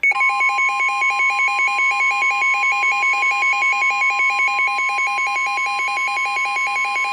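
Emergency Alert System attention signal: a loud steady electronic tone sounding together with a second tone that pulses rapidly, held unbroken, warning that an alert message for a severe thunderstorm is about to follow.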